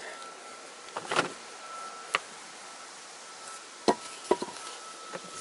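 Three-cylinder Toyota VVT-i engine block being turned over by hand on a board: a few separate hard knocks and clunks of the metal block shifting and setting down, roughly a second apart. A faint steady high hum runs underneath.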